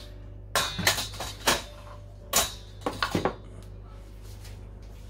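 Metal teaspoon clinking and scraping against ceramic and glass dishes as salt is spooned into a bowl, in a handful of short, sharp clinks spread over about three seconds.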